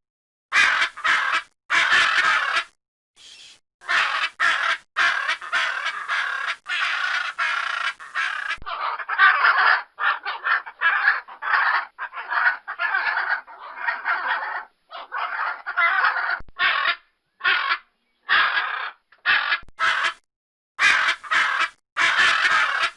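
Blue-and-yellow macaw giving loud, harsh, raspy squawks, one after another with short breaks between them.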